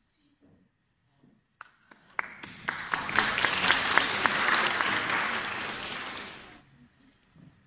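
Small audience applauding: a few scattered first claps, then steady clapping for about four seconds that dies away.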